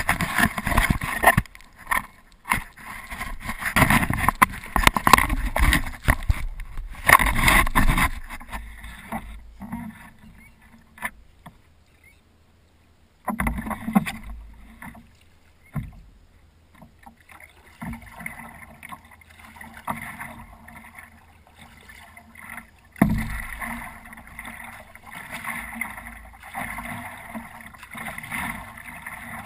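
Paddle strokes splashing and water lapping against a paddleboard, heard close up from the board. The first eight seconds or so are taken up by a loud, rough rumble, and a few sharp knocks come later.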